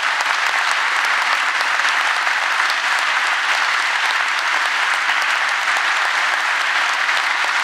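A large audience applauding steadily in a big, reverberant hall, many hands clapping together.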